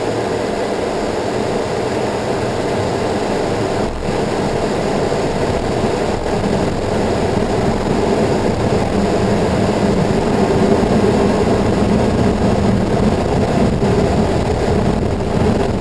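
Cockpit noise of a Learjet 35 on its takeoff roll: its two Garrett TFE731 turbofans run at takeoff power over the rumble of the rolling aircraft, growing gradually louder as it accelerates.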